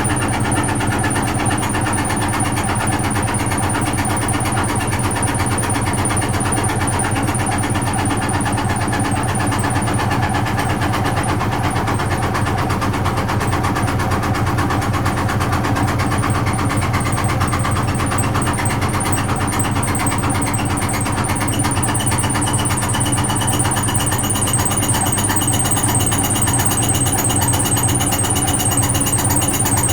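Frigidaire Super Deluxe Automatic 50 front-loading washing machine running steadily through its cycle, with a continuous motor hum. A thin high whine grows stronger over the second half.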